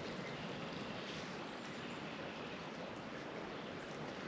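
Small creek running steadily, an even rush of flowing water.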